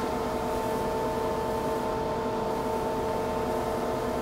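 Nakamura-Tome TW-20MM twin-spindle CNC turning center running under power, a steady machine hum holding several steady tones over a noisy bed.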